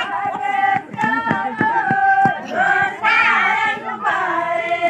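A group of women singing together, holding long notes and sliding between them, with several sharp knocks mixed in.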